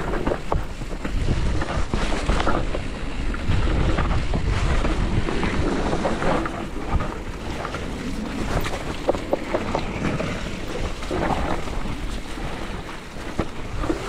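Wind buffeting the microphone over the rumble of a mountain bike riding a wet trail, with frequent small knocks and rattles from the bike.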